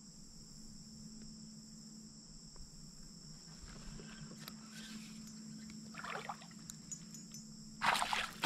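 Steady high-pitched insect chorus throughout. From about the middle come scattered clicks and rustling, and just before the end a brief loud burst of noise.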